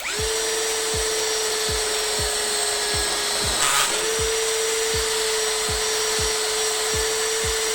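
Dagmara cordless drill running steadily at speed as it bores into a steel C-channel, a constant motor whine with a brief scrape and a slight rise in pitch a little over three seconds in.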